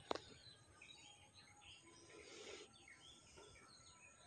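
Near silence with faint, scattered bird chirps and a brief click at the very start.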